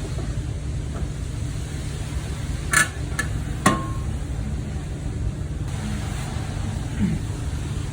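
A car being driven, heard from inside: a steady low rumble of road and running noise, with three sharp clicks a little before the middle.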